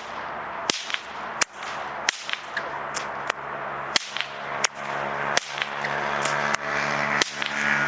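Bullwhip cracking in a continuous flow drill: a rapid run of about ten sharp cracks, roughly one every two-thirds of a second.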